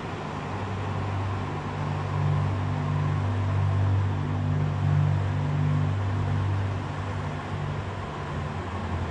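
Low steady humming tones that shift in pitch every second or so, over a steady hiss.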